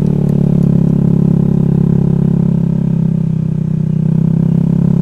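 Honda Vario scooter's single-cylinder engine running at a steady cruise, a constant low drone while riding.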